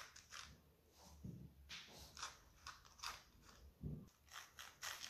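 Faint, scratchy dabs of a pastry brush laying egg wash along the raw pastry rim: a run of short, soft strokes, with one soft low thump about four seconds in.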